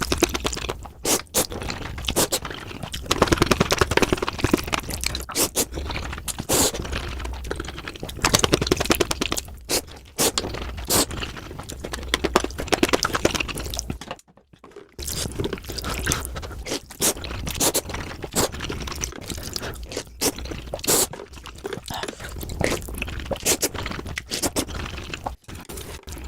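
Close-miked noodle eating sped up to four times normal speed: a dense run of rapid chewing and mouth crackles, with one brief pause a little past halfway.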